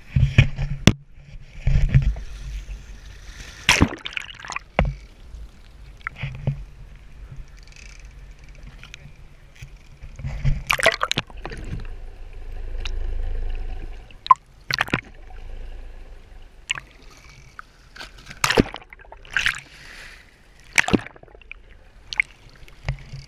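Sea water sloshing and splashing around a camera as it is dunked below the surface, with many sharp knocks and clicks on the camera and a low rumble of water partway through.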